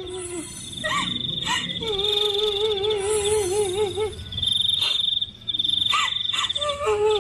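A high, steady, cricket-like trill, broken by a few short gaps, over which a lower warbling call wavers rapidly up and down, heard twice for about two seconds each, with a few short rising chirps between.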